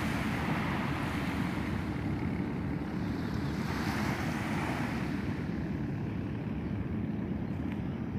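Small waves washing onto a sand beach, the wash swelling and fading every few seconds, with steady wind rumbling on the microphone.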